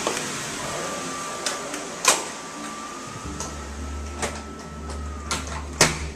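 A few sharp clicks and knocks of a hotel room door and its handling, the loudest near the end, over a low steady hum that comes in about three seconds in.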